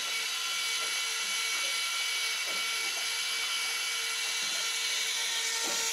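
Electric jigging reel's motor whining steadily as it winds line, over a constant hiss; the whine drops out briefly near the end.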